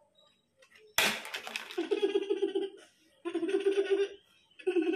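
A young child giggling and laughing in three quick bursts of short, rapid 'ha-ha' pulses, starting about a second in.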